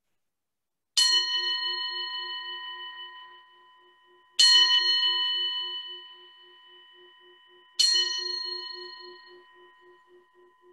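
A bell struck three times, about three and a half seconds apart, each strike ringing out and fading away over a low, pulsing hum. It is the signal for the service to begin.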